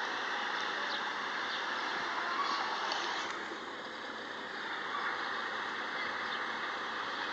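A steady, hissing drone whose pitch wavers slowly up and down, one of the unexplained 'strange sounds' reported in the sky.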